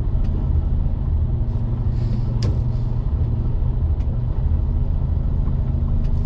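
Semi-truck's diesel engine running with a steady low drone, with a few light clicks over it.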